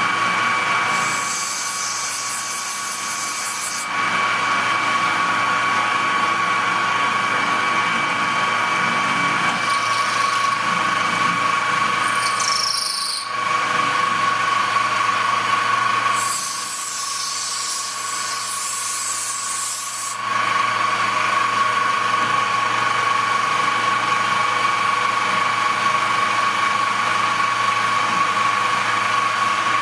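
Metal-cutting machine tool running with a steady whine while taking a 1.5 mm cut. Stretches of harsh high hiss come and go, about a second in and again about sixteen seconds in, with a short wavering high squeal near the middle.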